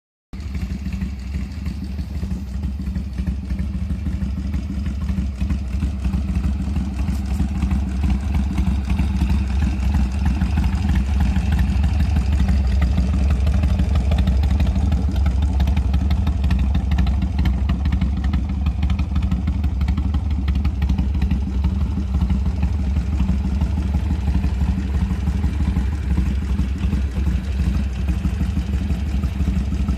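Harley-Davidson Sportster 883 R's air-cooled V-twin running steadily at idle through a Red Thunder aftermarket exhaust. It starts just after the beginning and gets a little louder in the middle.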